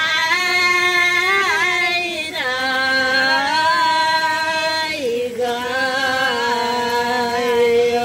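A woman singing a slow unaccompanied melody in long held notes with a slight waver, stepping down to a lower note about two and a half seconds in and again about five seconds in.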